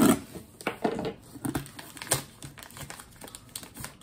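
Paper and cardboard crinkling and rustling in irregular bursts as a packing slip is pulled out of a cardboard shipping box, loudest at the start and about two seconds in.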